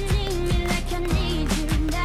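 Pop music playing: a steady drum beat under a wavering melody line.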